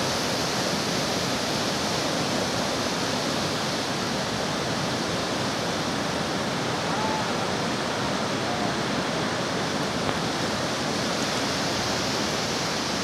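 River rapids rushing over stones: a steady, even rush of white water.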